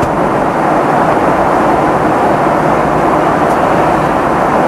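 Steady cabin noise inside a Boeing 767-300ER airliner in flight: the even rush of jet engines and airflow, unchanging throughout.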